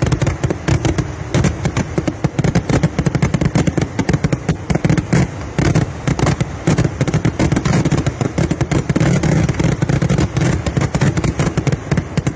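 Kerala temple fireworks (vedikkettu) going off in a dense, unbroken barrage of rapid bangs, many a second, from a ground-level launch point.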